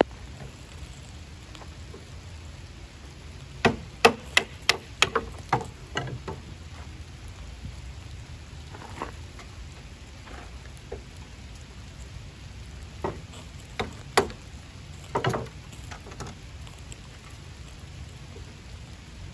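Steady rain falling, with sharp wooden cracks as small sticks of kindling are cut and broken with a knife: a quick run of about eight cracks a few seconds in, then three or four more later.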